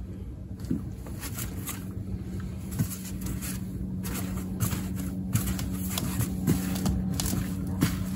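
Gloved hands working soil and fine roots in a plastic pot, making scattered soft rustles and small crackles over a steady low hum that grows louder toward the end.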